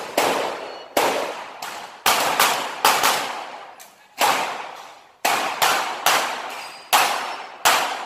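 A string of handgun shots fired in quick pairs and small groups, about a dozen in all, each echoing off under a steel-roofed range shed: a shooter working through an IPSC stage.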